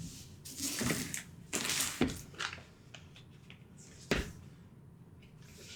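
Cardboard game boards being handled and shuffled: rustling and sliding in the first two seconds, with sharp knocks about two seconds in and again about four seconds in as boards are set down.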